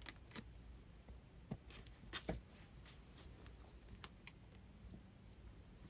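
Faint, scattered clicks and taps of jewelry pliers working heavy copper wire, over near-silent room tone.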